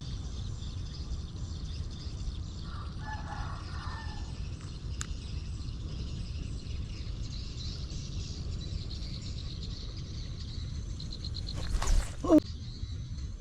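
Open-air field ambience: a steady low rumble of wind on the microphone under faint high chirping. About twelve seconds in comes a short, loud, sudden noise with a brief pitched sweep.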